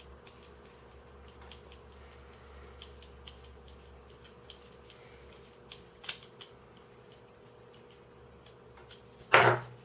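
Small clicks and ticks of a hand screwdriver driving a screw into a 3D-printed plastic puzzle piece, a face center being fastened to the core, with a few sharper clicks midway and one brief, loud clatter near the end.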